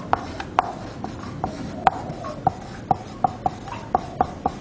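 Marker pen writing on a whiteboard: a string of short, irregular taps and squeaks, a few a second, as each stroke is made.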